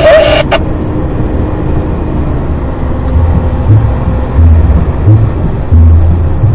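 Steady low engine and road rumble inside a lorry cab travelling at motorway speed. From about three seconds in there are a few brief, louder deep rumbles.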